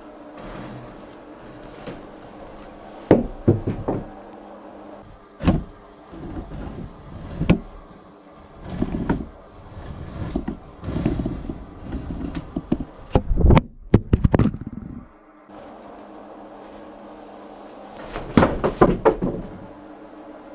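A series of irregular knocks and thumps, some in quick clusters of several hits: one cluster about three seconds in, a busy run through the middle, and another cluster near the end.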